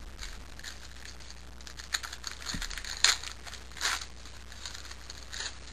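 Trading cards being handled and flicked through one by one, with short rustles and crinkling from the card packs' wrappers; the two loudest rustles come about three and four seconds in.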